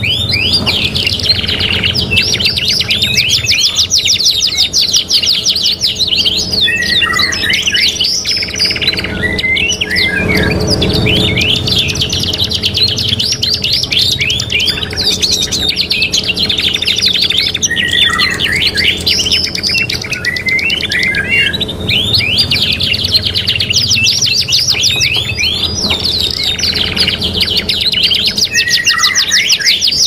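Several songbird recordings mixed together, including the songs of a blackthroat and a ciblek: a dense, unbroken stream of fast trills, rapid repeated notes and high chirps.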